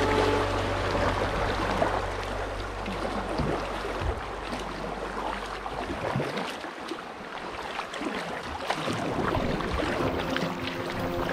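Rushing river water through shallow riffles, with irregular splashes of kayak paddle strokes. Background music fades out just after the start and comes back near the end.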